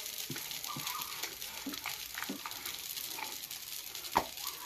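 Faint steady sizzle of a dosa cooking on a tawa, with light scattered knocks of a wooden rolling pin on a wooden board as chapati dough is rolled out, and one sharper click about four seconds in.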